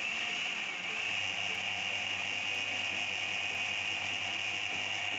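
Countertop blender running steadily as it blends a thick white sauce in its glass jar.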